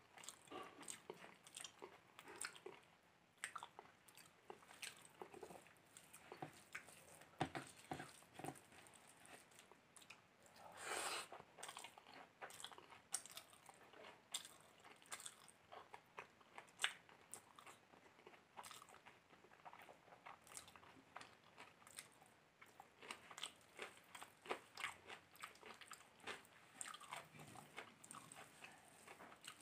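Close-miked chewing and lip smacking of a person eating biryani and egg curry by hand: a steady run of small, sharp mouth clicks and wet smacks.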